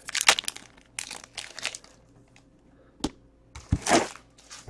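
Foil wrapper of a trading-card pack being torn open and crinkled in crackly bursts. About three seconds in there is a sharp click, then a low knock and a louder crinkle as packs are handled.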